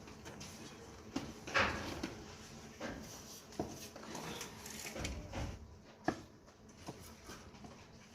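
Plastering tools scraping and tapping on wet cement render: irregular scrapes and sharp clicks, the longest scrape about one and a half seconds in.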